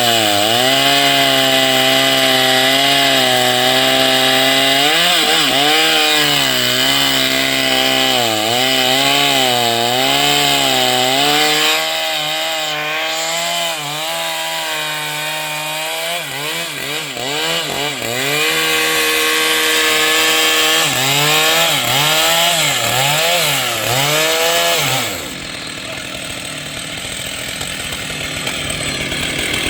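Two-stroke chainsaw cutting wood, its engine note dipping and recovering again and again under load. About 25 s in, the engine note breaks off suddenly and a quieter, rougher noise remains.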